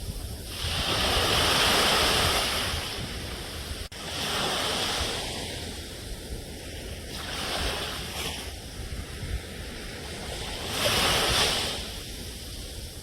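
Sea waves breaking and washing up the shore, swelling four times, the largest about a second in, over a steady low rumble of surf. The sound drops out for a moment about four seconds in.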